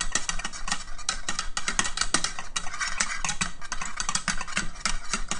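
Whisk beating thick cheese sauce in a saucepan: rapid, continuous clicking and scraping of the whisk against the pan.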